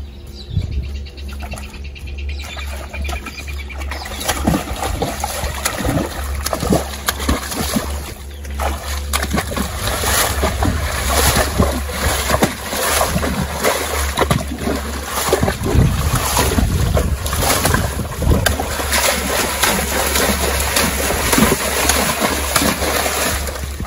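Horses pawing at a muddy rainwater puddle with their front hooves, splashing water and mud over and over. The splashing builds from about four seconds in and then comes thick and fast.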